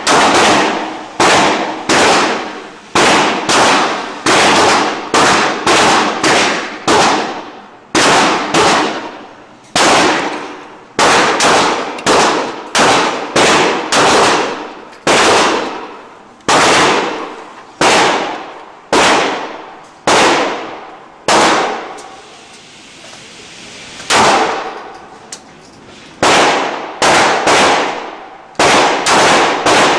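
Gunshots at an indoor shooting range, each a sharp crack with a ringing echo off the range walls. They come irregularly, one to two a second, with a gap of a couple of seconds a little after twenty seconds in.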